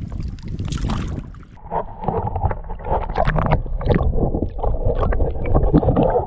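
Water splashing and gurgling around a kayak, with scattered knocks and clatter on the hull, over a steady low rumble.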